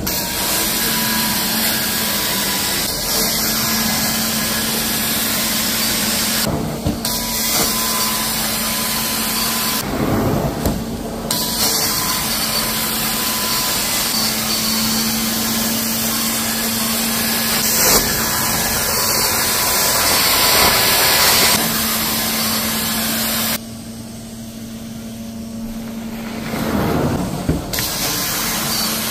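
Carpet extraction wand in use: a steady vacuum-motor hum under a loud rush of air and water being sucked up through the wand head as it is pulled across wet carpet. The hiss drops out briefly twice, and near the end it falls away for a few seconds and the sound runs quieter.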